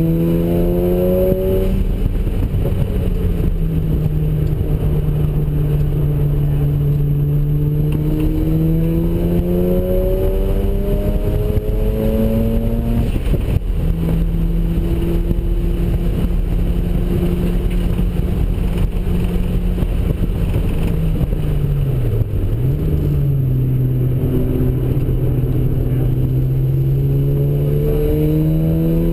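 Turbocharged rotary engine of a street-ported Mazda RX-7, running on low boost (10 psi) and pulling hard on track. The engine note climbs steadily and drops sharply at gear changes about a second and a half in and again around 13 seconds in. It dips briefly and recovers around 22 seconds, then climbs again near the end.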